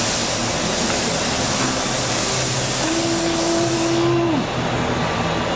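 Chevrolet Camaro SS's 6.2-litre V8 running at low speed through its newly repaired exhaust, with a steady hiss over it that drops away about four seconds in.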